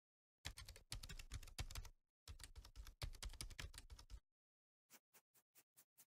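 Fast typing on a computer keyboard in two quick runs of key clicks, with a short pause between them, then a handful of slower, separate clicks near the end.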